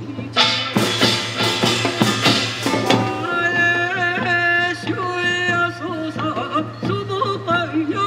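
Korean farmers' folk music (pungmul): hand drums and metal percussion clatter densely at first, then a high melodic line with a strong wavering vibrato carries on over the beat from about three seconds in.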